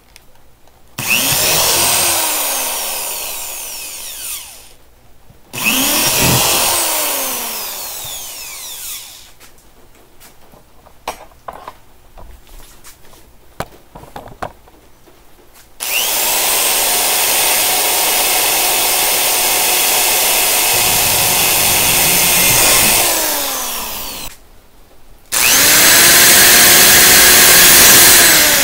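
Power drill boring holes through a plastic kayak hull, with a small bit for screw pilot holes: four bursts of drilling. The first two wind down in pitch as the trigger is let off. A few light clicks come between them and a longer steady run, and another run comes near the end.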